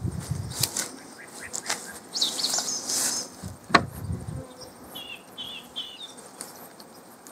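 Scattered light knocks and scrapes as an oxalic acid vaporizer is fitted into a beehive's entrance, with one sharp knock a little before halfway, amid buzzing bees. A bird chirps three times in the second half.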